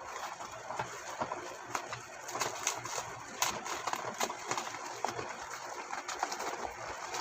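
Ring light packaging being handled and opened: irregular clicks, taps and crinkling.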